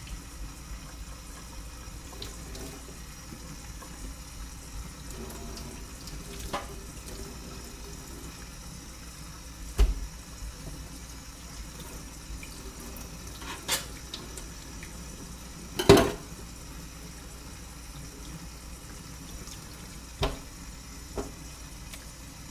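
Tap water running steadily into a sink as a fish is rinsed under it, with half a dozen sharp knocks and clatters. The loudest knock comes about two-thirds of the way through.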